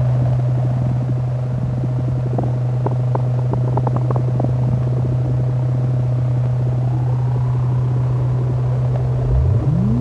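Eurorack modular synthesizer sound design imitating deep-ocean sounds. A steady low drone runs under a thinner, higher tone, with crackling clicks in the middle. The higher tone glides upward about seven seconds in, and a low sweep starts rising near the end.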